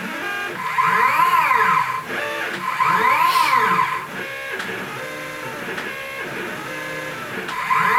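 Stepper motors of a CNC machine driving its axes: each move is a whine that rises and then falls in pitch as the motor speeds up and slows down, twice about a second and a half long, with a third move starting near the end. Between moves there is a quieter steady hum.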